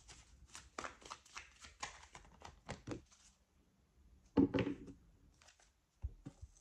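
A deck of tarot cards being shuffled by hand: a quick run of soft card clicks for about three seconds, then a single louder thump about four and a half seconds in.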